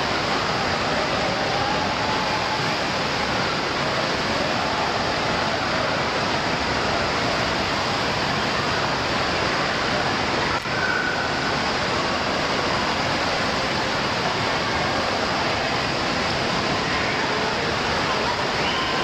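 Steady rushing and splashing of water from an indoor water park's lazy river and water features, with faint voices in the background.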